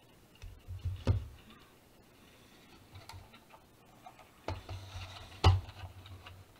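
A few light clicks and knocks of hard PLA plastic models being handled and moved on a table, with soft thuds; the loudest click comes about five and a half seconds in.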